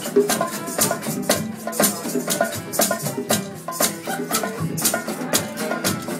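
Live acoustic band playing an instrumental passage: two acoustic guitars strumming chords over bongos and hand percussion keeping a steady beat.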